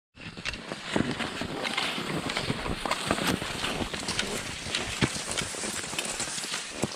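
Cross-country skis sliding and ski poles planting in snow: irregular sharp clicks and knocks over a steady swishing noise.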